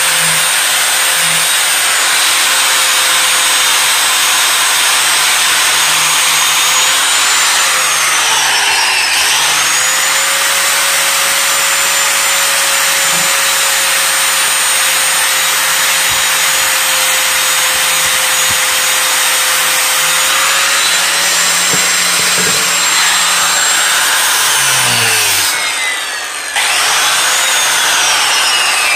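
Angle grinder with a flap disc grinding rust off a steel hatchet head: a loud, steady grinding hiss over the motor's whine. Twice the whine sags in pitch and recovers as the load changes, about nine seconds in and again near the end.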